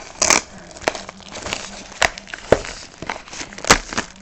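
The wrapping of a sealed trading-card box being torn open by hand: irregular crinkling and crackling with several sharp, louder snaps.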